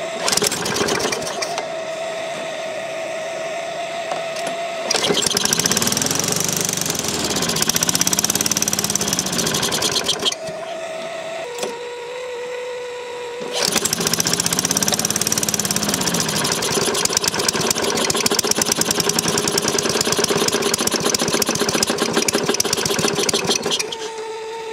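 Craftsman Eager 1 lawn mower engine, fuelled through a homemade vegetable-oil vapor carburetor, pull-started and running rough in two spells with its speed surging up and down. It stops after about five seconds, runs again after another pull a few seconds later, and cuts off suddenly at the end. A steady whine is heard in the quieter stretches.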